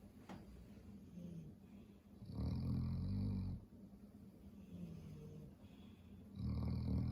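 A sleeping dog snoring: two long snores, each just over a second, about four seconds apart, with quieter breathing between.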